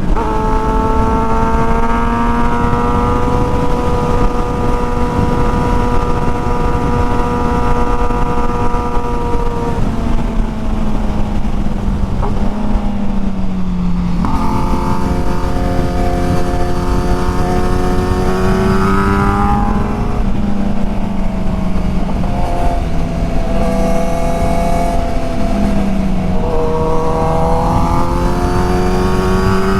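Sport motorcycle engine under way on the road, its pitch climbing and holding, dropping off as the throttle closes, then climbing again a couple of times, over a steady wind rush.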